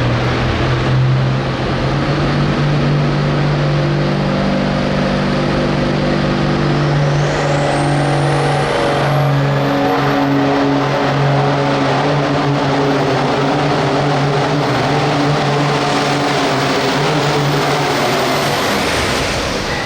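Hot farm class pulling tractor's turbocharged diesel engine running hard under load during a pull. A high turbo whistle climbs in pitch from about seven seconds in and then holds. The engine note drops away near the end.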